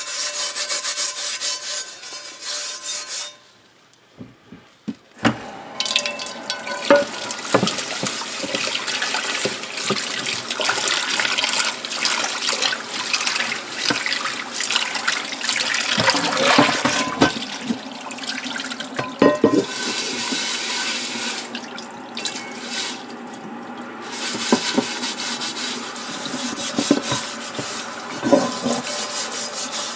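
Tap water running into a sink over a cast iron skillet as it is scrubbed with a steel wool pad, washing off crud softened by oven cleaner, with scattered knocks of the pan and scrubbing. The water stops for about two seconds near the start, with a few clicks, then runs again.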